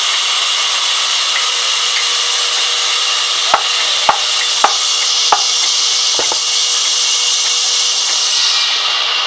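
Sawmill band saw running through a wooden slab, a loud steady hiss of the blade in the wood. Four sharp knocks come in quick succession about midway.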